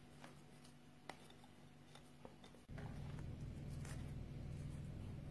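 Faint, scattered light clicks and taps, then a steady low hum sets in about halfway through.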